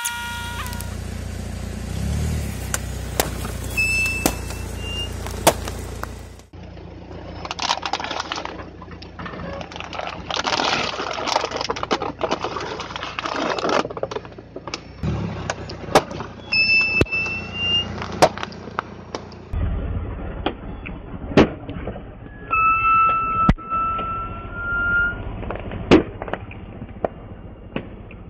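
A car tyre rolling slowly over plastic water bottles and balloons, crushing them. The plastic crackles and crunches, with sharp cracks and pops as bottles split and balloons burst, and a few short high squeaks. The car's engine rumbles low underneath at the start and again in the later part.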